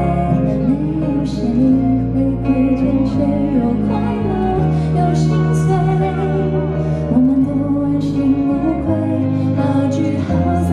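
Slow pop ballad performed live: a female voice singing over band accompaniment with sustained low notes that change every second or two.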